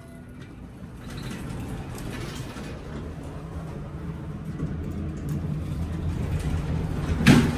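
2003 Otis traction elevator running with a low rumble that grows louder, then its doors bang shut with one loud slam near the end: the door slam that has developed in place of a normal close.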